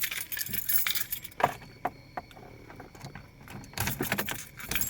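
Keys jangling and clicking on a key ring as the key is worked in the ignition of a dead 2008 Chevrolet Malibu. The car gives no crank or engine sound; the electrical system is dead even with jumper cables on.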